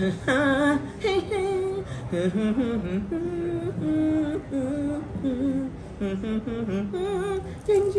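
A woman singing a melody unaccompanied, partly hummed, in held notes that waver with vibrato.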